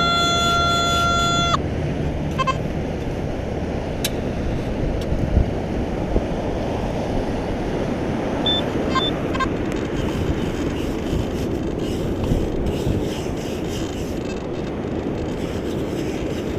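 Steady rushing wind noise on the microphone. A Nokta Makro Simplex+ metal detector sounds through its speaker: a held tone cuts off about a second and a half in, and a few short beeps follow later.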